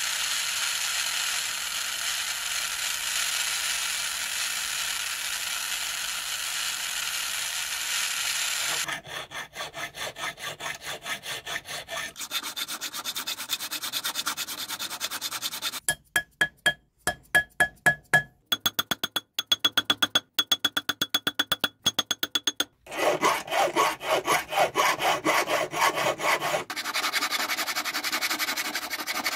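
A soldering torch flame hisses steadily for about nine seconds, then cuts off abruptly. After that a steel hand file rasps back and forth on a silver ring, about three or four strokes a second, with some strokes giving a faint metallic ring.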